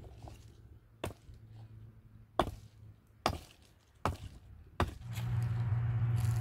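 Five sharp chopping blows on wood, irregularly spaced about a second apart. A steady low hum starts after the last blow.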